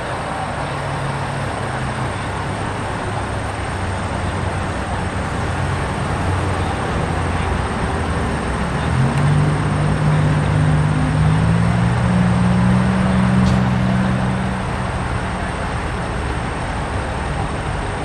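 Road traffic noise: a steady wash of passing vehicles, with a large engine's drone swelling about halfway through, rising a little in pitch, then fading a few seconds later.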